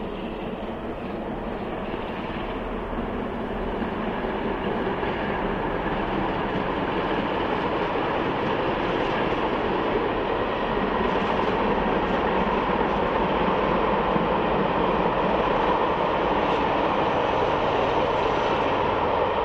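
Steam-hauled passenger train passing: the Thompson B1 steam locomotive working with its coaches rolling, and the Class 47 diesel locomotive at the rear assisting. A steady rumbling that grows gradually louder as the train draws near.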